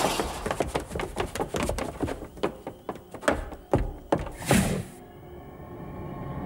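Animated fight sound effects: a quick, irregular flurry of knocks and thuds, with a few heavier hits between about three and four and a half seconds in, then the action quietens.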